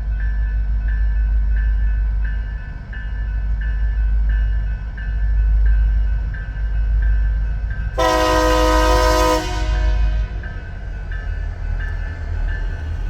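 Union Pacific locomotive sounding one loud horn blast, a chord of several tones lasting about a second and a half, about two thirds of the way in. Under it a railroad crossing bell rings about twice a second over a steady low rumble from the train.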